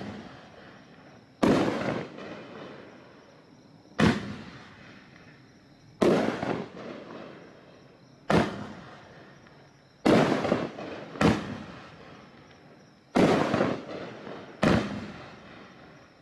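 A 9-shot, 500 g consumer fireworks cake (Raccoon Fireworks 9S American Anthem) firing shot by shot: about eight sharp bangs, one every one to two and a half seconds, each trailing off over a second or so.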